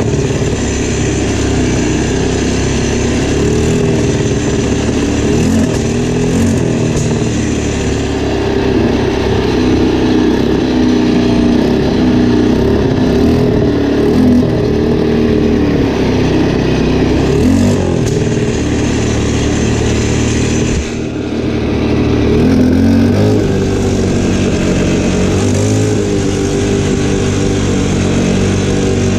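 ATV (quad bike) engine running while being ridden over a dirt trail, its pitch rising and falling with the throttle. The level drops briefly about two thirds of the way through.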